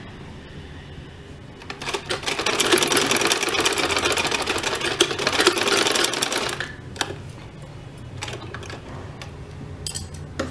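A black domestic sewing machine running at speed for about five seconds, a rapid even clatter of the needle stitching trim onto fabric, then stopping. A few single clicks follow as the fabric is handled.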